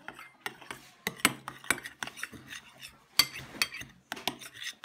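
A utensil stirring in a bowl, clinking and tapping against its sides in quick, irregular clicks.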